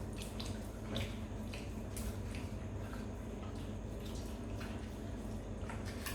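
Scattered light clinks and taps of dishes and cutlery during a meal, over a steady low hum.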